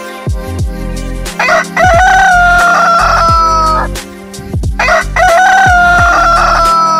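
A rooster crowing twice, each crow a long held call of about two seconds that falls slightly in pitch toward its end.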